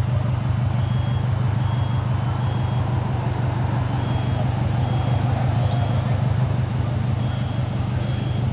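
A car engine idling with a steady, low, fast-pulsing throb, while a short high electronic beep repeats every second or so in small groups.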